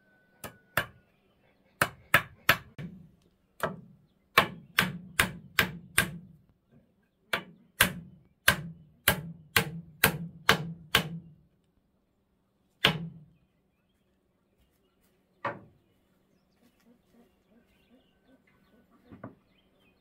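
Claw hammer driving a nail into a wooden post and rail: about twenty sharp strikes in quick runs of two to six, roughly two blows a second. After a pause come two lone strikes, then the hammering stops.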